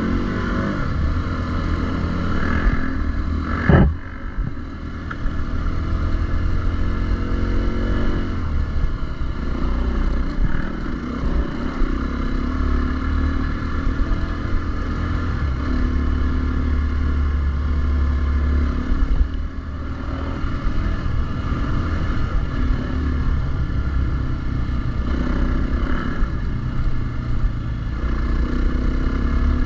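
Dirt bike engine running under way, its pitch rising and falling with throttle and gear changes, over a heavy low rumble of wind on the microphone. A sharp loud knock about four seconds in.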